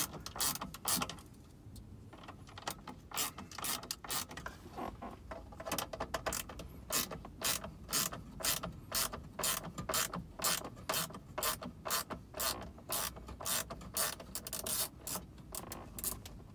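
Hand ratchet with a T25 Torx bit clicking steadily as screws are turned out of a car's dashboard radio bracket, about three clicks a second, with a short pause a second or two in.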